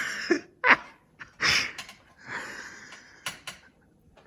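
A person's breathy, wheezing laughter in short gasps, with a couple of small clicks near the end.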